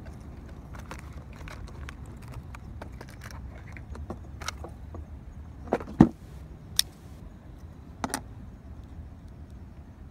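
Dry grass rustling and crackling with scattered light clicks, over a low steady rumble. A few sharper clicks and a thud come about six and eight seconds in.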